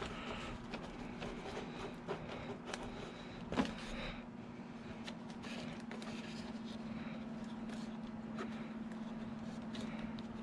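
Faint clicks and rustles of hands working wiring and parts into a foam RC jet airframe during assembly, with one sharper knock about three and a half seconds in. A steady hum runs underneath.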